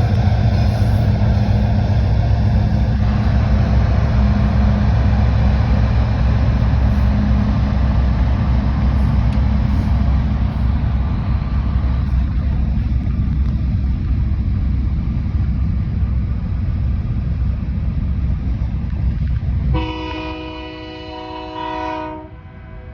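A Norfolk Southern grain train running past: a loud, steady rumble of the locomotives' diesel engines and the rolling cars, easing off in the second half. Near the end a train horn sounds one chord for about two seconds.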